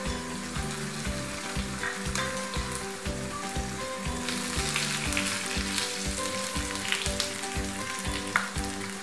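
Hot oil sizzling in a frying pan as a tadka of fried onions and whole spices is stirred with a spatula, with a few light scrapes and clicks of the spatula on the pan, mostly in the second half. Background music with a steady beat plays underneath.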